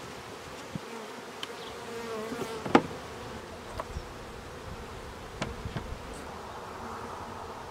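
Honey bees buzzing steadily around open hives. A few sharp knocks from wooden hive boxes and covers being set in place cut through it, the loudest a little under three seconds in.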